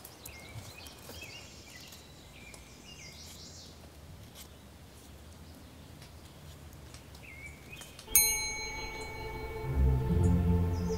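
Quiet woodland ambience with scattered small bird chirps. About eight seconds in, a bell-like chime rings out and music begins with sustained tones, a low pulse joining near the end.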